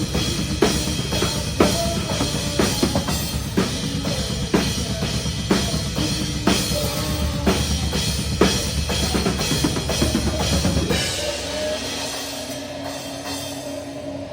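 Live metalcore band with the drum kit loud and close: steady snare hits over continuous bass drum pounding, with cymbals. About eleven seconds in the drums stop and a held guitar chord rings out.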